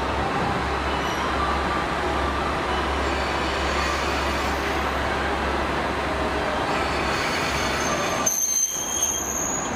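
KiHa 40-series diesel railcar rumbling as it pulls into the platform, with a thin high brake squeal near the end as it comes to a stop.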